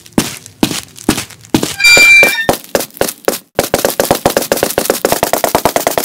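Cartoon sound effects: a string of sharp taps, a few a second, with a brief squeaky tone about two seconds in. About three and a half seconds in, the taps turn into a fast, even patter of about ten a second.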